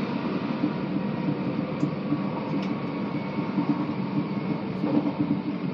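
Steady running noise of a moving passenger train heard from inside the carriage: a low, even rumble of the wheels on the track.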